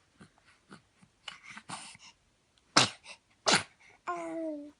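A baby sneezing twice in quick succession, about 0.7 s apart, after a few short sniffly breaths. A brief held vocal sound with a slightly falling pitch follows near the end.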